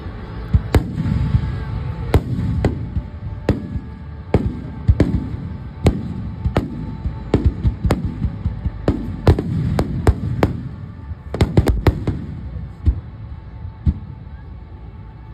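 Fireworks going off in an irregular string of sharp bangs, each followed by a low rumble, with a quick flurry of several bangs about three-quarters of the way through.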